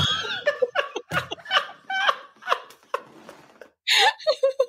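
Hearty laughter in reaction to a joke: a high shriek of laughter at the start, then a run of short bursts of laughing, dying down and flaring up again near the end.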